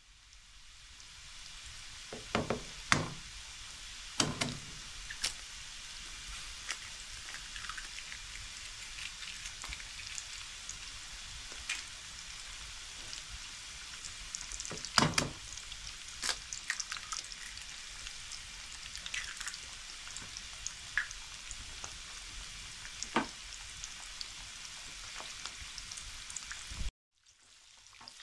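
Food frying in a pan: a steady sizzle, with occasional sharp knocks and clinks, the loudest a few seconds in and again about halfway through.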